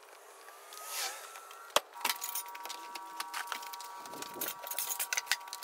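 A heavy oak slab being handled at a car's open rear door: a sharp knock a little under two seconds in, then light clattering and rattling over a steady high tone.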